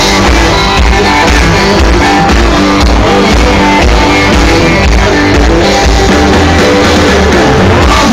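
Loud music from an open-air festival stage's sound system, with a steady heavy bass beat.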